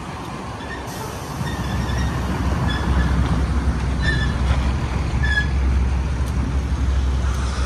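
A motor vehicle's low, steady rumble that grows louder about two seconds in, with a few faint short chirps above it.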